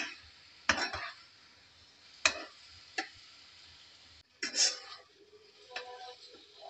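Spatula knocking and scraping against a wok while tossing noodles: about six short sharp clicks at uneven gaps, with quiet in between.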